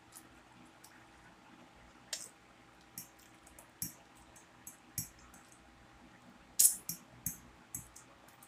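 A person eating with the fingers: scattered wet mouth smacks and clicks from chewing and licking the fingers, the loudest cluster about two-thirds of the way in.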